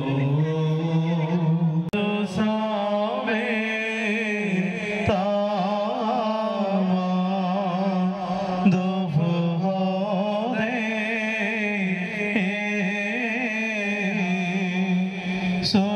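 Music: a chanted melody with long, wavering held notes over a steady low drone.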